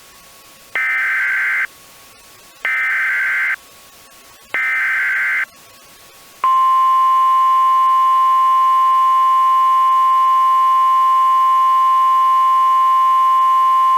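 Emergency Alert System SAME header: three short bursts of screeching digital data, each about a second long, sent to trigger alert receivers. About six and a half seconds in, a loud steady single-pitched alert tone starts and holds.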